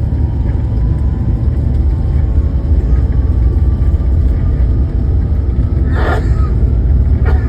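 Airliner takeoff roll heard from inside the cabin: a loud, steady low rumble of the engines at takeoff power, with a short higher-pitched sound about six seconds in.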